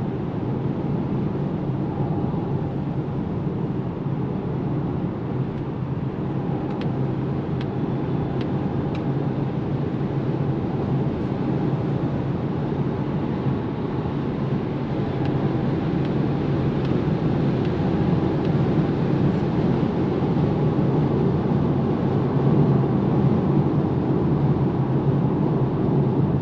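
Steady road and tyre noise, with wind, inside the cabin of a Polestar 2 dual-motor electric car cruising at motorway speed, about 110 km/h. It grows slightly louder over the last several seconds.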